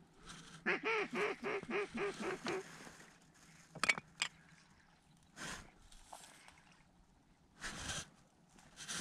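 A quick run of about eight evenly spaced mallard quacks starting about a second in. Two sharp clicks follow about four seconds in.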